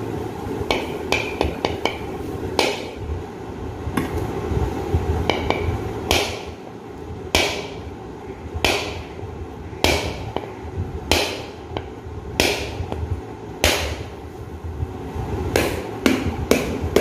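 Whole husked coconut struck repeatedly with a heavy curved knife blade to crack the shell open: sharp hard knocks, a few quick light taps near the start, then strikes at a steady pace of about one every second and a quarter.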